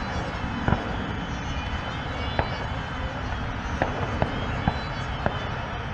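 FMS Rafale 80 mm electric ducted-fan RC jet whining faintly over a steady low rumble, with about six sharp clicks scattered through.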